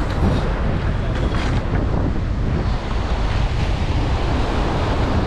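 Wind buffeting the microphone over the steady wash of surf breaking on a sand beach.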